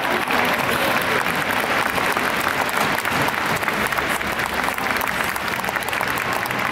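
Arena audience applauding, many hands clapping steadily.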